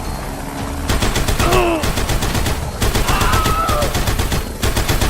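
A fast, even rattle of clicks, like machine-gun fire, starting about a second in. Short gliding squeaky cries sound over it a few times.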